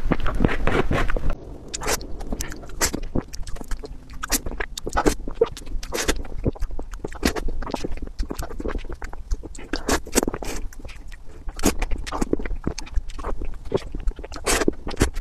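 Close-miked eating of soft mousse and cream cake: wet mouth sounds, with irregular lip smacks and tongue clicks a few times a second and a metal spoon scraping through the cream. For about the first second and a half the sound is a dense, continuous wet squelching, which then cuts off and gives way to sparser smacks and clicks.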